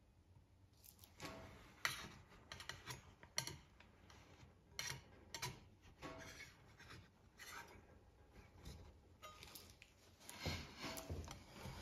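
Metal spatula scraping across a steel cold plate, pushing a frozen sheet of ice cream up into a roll: quiet, irregular short scrapes and taps, busier near the end.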